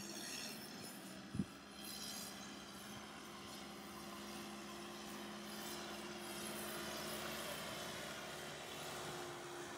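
Caterpillar 420E backhoe loader's diesel engine running steadily as the machine drives closer, with one sharp low thump about one and a half seconds in.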